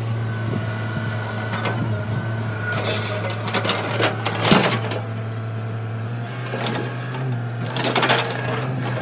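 Tata Hitachi hydraulic excavators' diesel engines running steadily while the buckets dig into earth and rock, with irregular scraping and clanking knocks, the loudest about four and a half seconds in and another cluster around eight seconds in.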